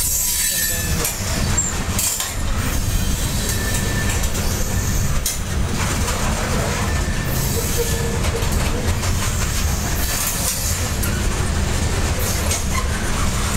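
Freight train of covered grain hopper cars rolling past: a steady rumble of steel wheels on the rails with scattered clacks, and a few brief, faint squealing tones.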